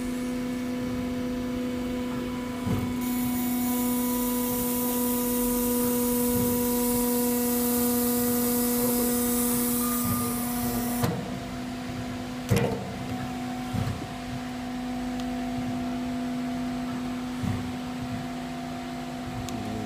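Steady electric hum from a BTM clinching machine's power unit, joined about three seconds in by a high air hiss that cuts off suddenly past the middle. A few light knocks of the plate being handled follow, one sharper than the rest.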